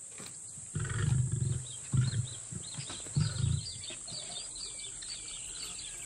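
Lion giving a series of deep grunts about a second apart, the tail of a roar, which ends after about three and a half seconds. Birds chirp through the rest.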